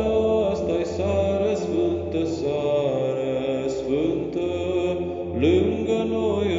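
Singing of a Romanian colind (Christmas carol), a slow vocal line gliding between notes over a low, steady drone.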